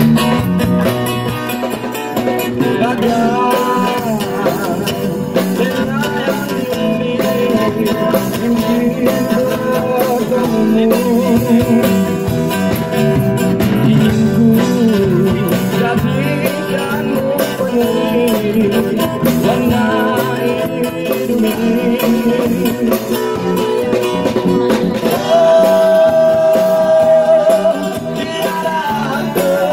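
Street band playing a rock song through a small amplifier: a man sings into a microphone over guitar, bass and drums, holding a long wavering note near the end.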